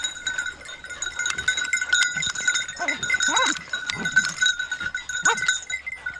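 Hunting dogs' collar bells jingling without a break, with the dogs whining, and two short falling yelps, one about halfway through and one near the end.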